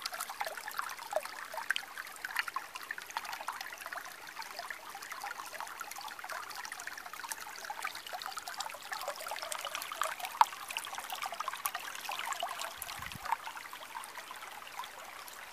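Small mountain stream babbling over stones: a steady rush full of small trickles and splashes.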